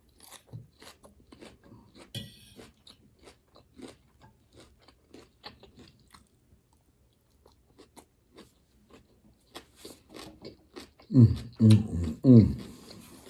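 Close-up crunching and chewing of a raw-vegetable garden salad: irregular crisp crunches, several a second, thinning out midway. A person's voice sounds briefly near the end, louder than the crunching.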